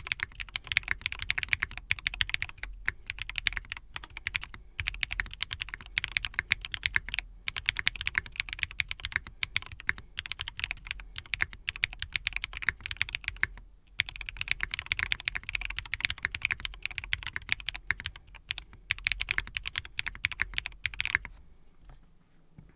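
Typing sound test on a freshly built Intro S100 mechanical keyboard: fast, continuous keystrokes with short pauses, including one longer break about two-thirds of the way through. The typing stops shortly before the end.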